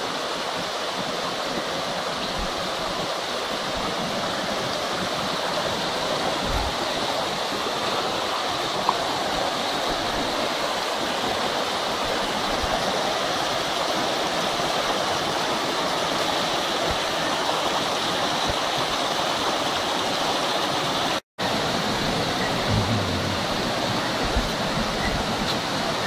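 Steady rushing of water tumbling down small rocky waterfall cascades, an even hiss with no let-up. It cuts out for an instant about twenty seconds in.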